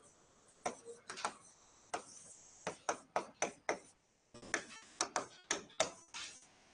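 Sharp, irregular taps on a board, two to three a second with a short pause about four seconds in: a teacher drawing on the board with a writing tool.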